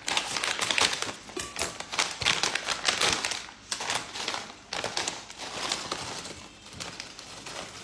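Crinkly plastic chip bag being snipped open with kitchen scissors and handled, crackling and rustling, then shaken as chips are tipped out of it.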